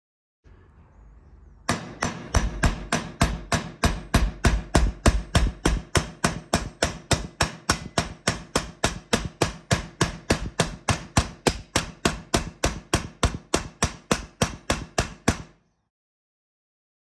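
Rapid, even hammer blows, about four a second, setting a steel rivet through two pieces of sheet steel with an armor rivet-setting tool. The blows start about two seconds in.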